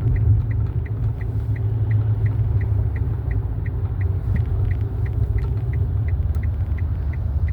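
Steady low rumble of a car's cabin, with a light even ticking about three times a second.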